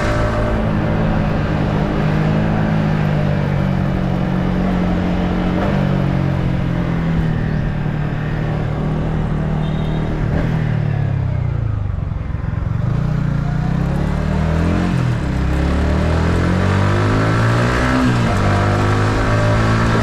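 Yamaha MT-15's single-cylinder engine with its stock exhaust, heard on board while riding: it holds steady revs, drops in pitch as the bike slows about halfway through, then climbs again as it accelerates.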